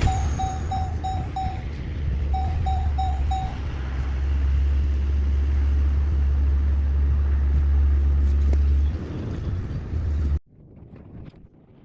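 Truck driving with a steady low rumble, broken in the first few seconds by two runs of four quick electronic beeps. The rumble cuts off abruptly about ten seconds in.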